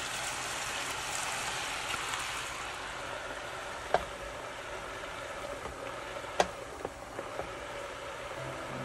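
Happosai ingredients sizzling in a frying pan, with a few sharp clicks, the loudest about four and six and a half seconds in.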